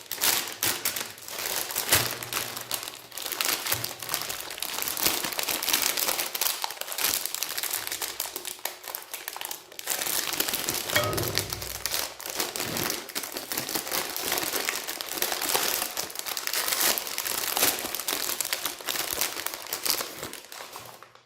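Plastic ice cream bar wrappers crinkling while being handled: a dense, continuous run of fine crackles that cuts off at the end.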